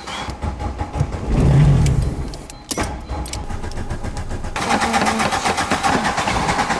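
Old VW Golf 2 being cranked on its starter motor without starting, its hard starting a sign of a weak battery or a fuel problem. A brief louder surge comes about a second and a half in, the cranking stops with a click just under 3 s, then resumes, fuller, from about 4.5 s.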